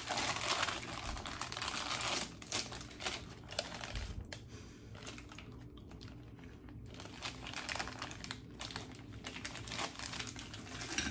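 Plastic candy bag crinkling as it is handled, with many small rustles and crackles. It is loudest in the first couple of seconds, dies down in the middle and picks up again near the end.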